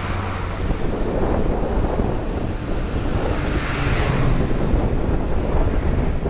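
Wind buffeting the microphone while riding, a loud continuous rushing, with a faint steady low engine hum underneath.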